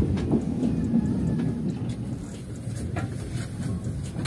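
Steady low rumble of a moving passenger train heard from inside a sleeper compartment, with a few sharp knocks.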